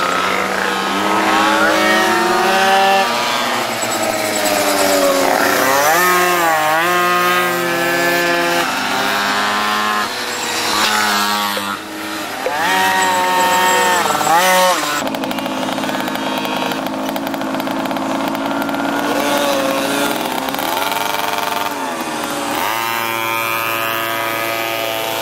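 Engines of small mini GP racing motorcycles revving hard, the pitch climbing and dropping again and again as the bikes accelerate and brake around the course, with a steadier held note for several seconds past the middle.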